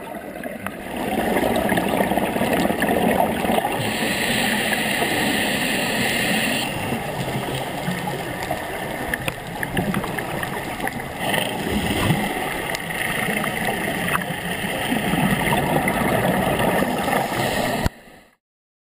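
Scuba diver's regulator breathing heard underwater: gurgling, rumbling exhaled bubbles with stretches of hissing inhalation. It cuts off suddenly near the end.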